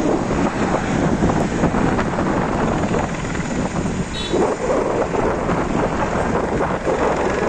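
Steady noise of motorway traffic, with wind buffeting the microphone.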